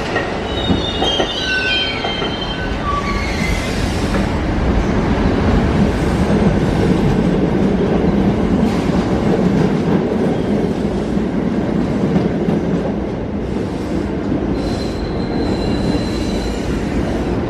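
New York City subway train wheels running on steel rail: several high wheel squeals that shift in pitch in the first few seconds, then a steady heavy rumble that is loudest mid-way, with one more held squeal near the end.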